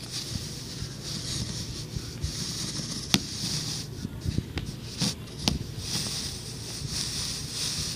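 Close rustling hiss at the microphone that swells and fades, with a few sharp clicks: handling noise from the handheld camera as it moves.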